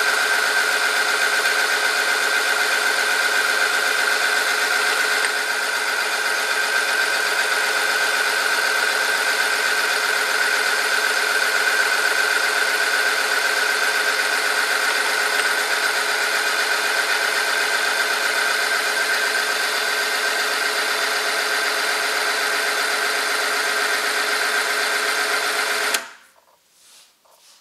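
Electric-motor oil film strength testing machine running under load, its spinning ring rubbing against a steel test sample in oil heated to 100°C: a steady mechanical whine with a strong high tone that drops slightly about five seconds in. About 26 seconds in it is switched off and the sound stops suddenly, leaving only a few faint ticks.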